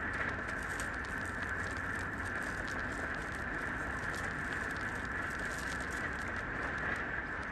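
Puppy suckling at its mother dog's teat: many small, irregular wet clicks and smacks over a steady high-pitched hiss.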